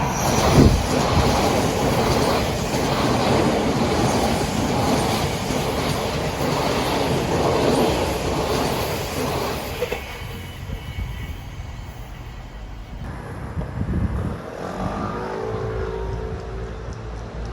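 Odakyu Line electric train passing a level crossing close by: a loud rush of wheel and rail noise that swells within the first second and fades away about ten seconds in.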